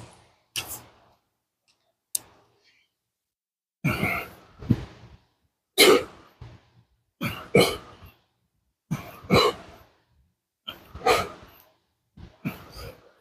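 A man's hard, noisy exhalations with each rep of weighted back extensions, usually two close together per rep, about every one and a half seconds from about four seconds in. A few short, fainter breaths come before that.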